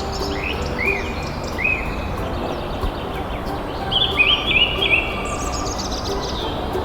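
Small birds chirping over a steady background hiss, with short rising chirps here and there and a quick run of them about four to five seconds in.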